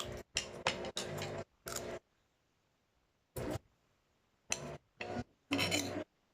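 Eating sounds close to the microphone: about eight short, sharply cut-off bursts of noise from chewing and cutlery, with near silence between them.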